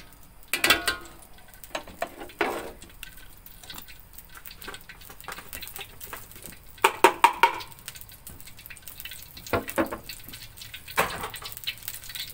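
Metal spatula clinking and scraping against a thin aluminium wok in several short clattering bursts, the loudest about seven seconds in.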